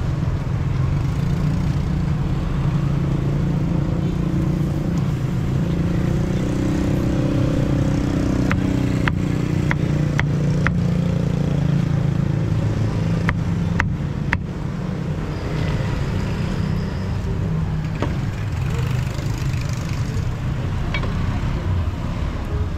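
Street traffic with a motor running steadily, and two short runs of sharp knocks near the middle.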